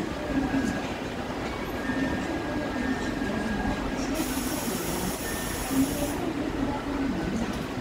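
Electric train running close by out of view: a steady rumble with a wavering low hum. About four seconds in, a high-pitched squeal lasts for about two seconds.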